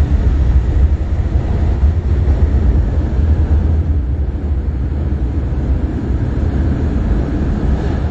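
MTR Island Line metro train running past the platform screen doors, a steady deep rumble of the carriages moving through the station.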